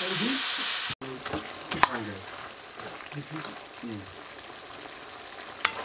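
Meat frying in a black iron karahi over a wood fire: loud sizzling for about a second, then, after a sudden cut, a quieter sizzle while a metal ladle stirs and clinks against the pan a couple of times. Faint voices underneath.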